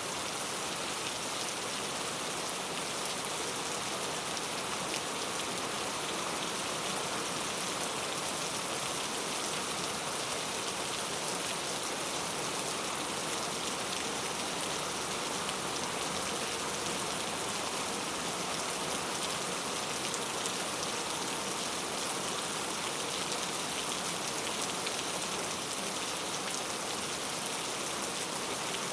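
Steady rain falling, an even hiss with fine drop patter that holds constant throughout.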